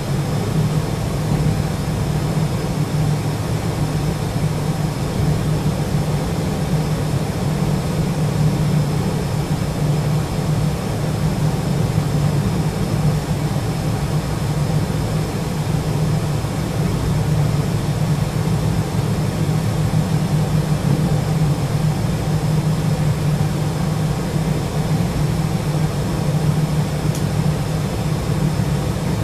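Electric passenger train running at a steady speed, heard from inside the driver's cab: a steady low drone with no breaks.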